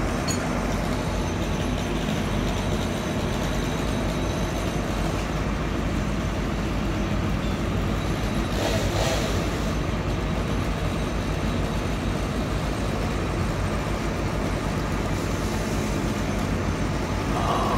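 A large engine running steadily with a low rumble. About nine seconds in, a brief rushing noise rises over it.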